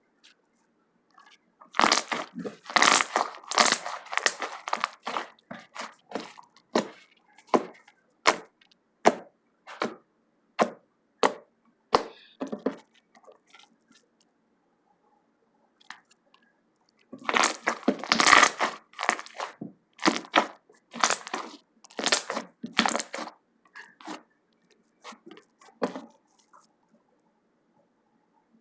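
Slime being worked by hand, making sharp crackling pops: two dense runs of rapid pops, with single pops spaced out between them and a quiet spell in the middle.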